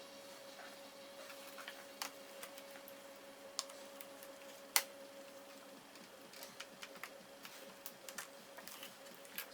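Small sharp clicks and taps of tools and plastic parts being handled while a Toshiba Qosmio G40 laptop is taken apart: a few separate clicks, the loudest almost five seconds in, then a quicker run of small clicks. A faint steady hum sits underneath.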